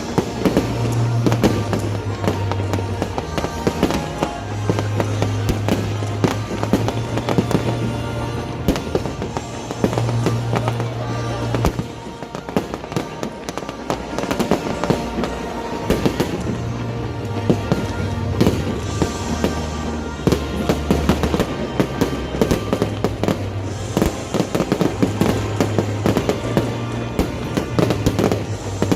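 Fireworks going off in rapid succession, many sharp bangs and crackles, over loud music with a bass line that shifts every second or two.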